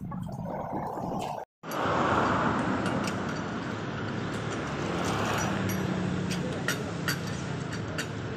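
Steady road-traffic noise, with a few light metallic clicks from a cross-shaped lug wrench working on a car's wheel nuts.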